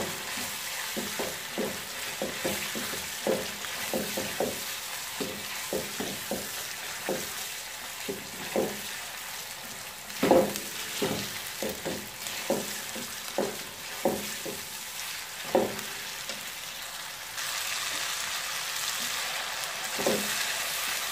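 Small chicken pieces sizzling in hot oil in a pot while a plastic slotted spatula stirs them, with frequent scrapes and knocks of the spatula against the pot. The sizzle grows louder about three-quarters of the way through.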